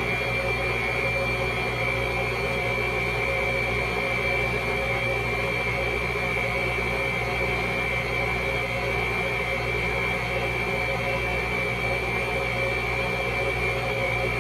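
Steady electric machine hum, like a running kitchen appliance motor, with a constant high whine over a low drone and no change in speed.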